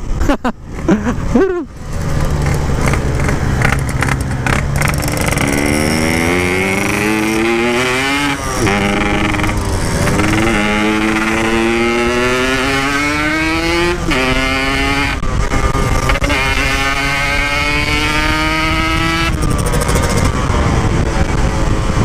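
Yamaha RX-King single-cylinder two-stroke motorcycle with a stock-style expansion exhaust, accelerating hard through several gears: the revs climb and drop back at each shift, then steady near the end. The engine's setting is still off, which the rider feels as heavy, sluggish pulling.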